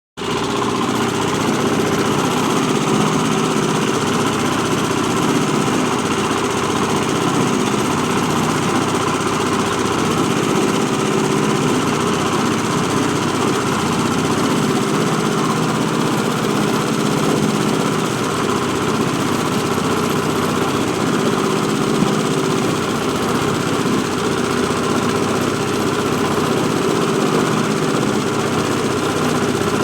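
Coconut husk peeling machine running steadily, a constant mechanical drone with several even tones.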